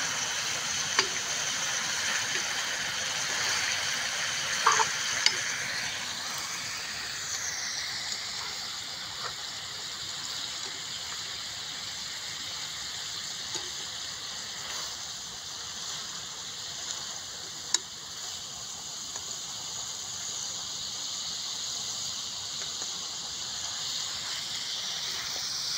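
Meat curry sizzling in a frying pan on a portable gas stove, a steady hiss, as it is stirred with a spoon that clicks sharply against the pan a few times. The curry is at the end of its cooking.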